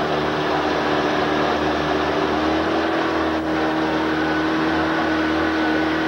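Covered tour boat's motor running steadily under way, with wind and water noise around it; its hum rises a little in pitch partway through.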